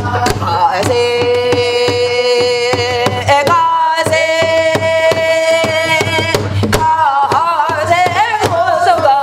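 A woman singing a Namdo folk song in a full, open voice, holding a long note and then a higher long note, then a shaking, wavering line near the end. Steady strokes of a buk barrel drum keep time under the singing.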